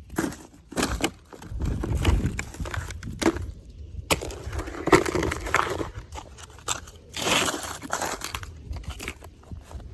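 Irregular crunching, scraping and crackling of snow and ice, in uneven bursts with sharp clicks.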